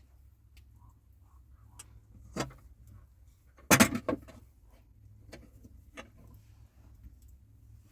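Scattered light clicks and knocks over a low steady hum, with a single knock about two and a half seconds in and a loud cluster of knocks just before the middle.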